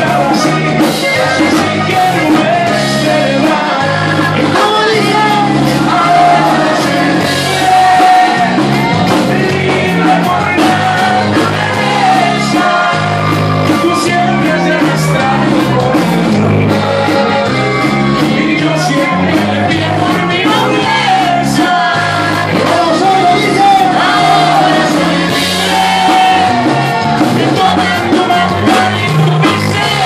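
Live band playing, with accordion, guitar, bass guitar and drums, while a man sings the lead melody over a steady beat.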